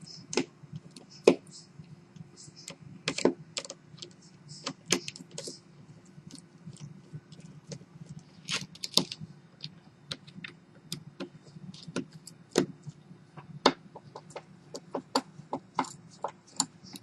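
Small Phillips screwdriver working tiny screws out of a smartphone's frame: irregular light clicks and ticks of the metal bit and screws on plastic and metal, over a faint steady low hum.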